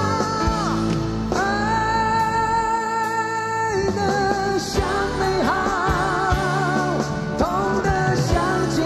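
Live band music with a male singer holding a long wordless note into a microphone, starting about a second in, followed by shorter wavering notes.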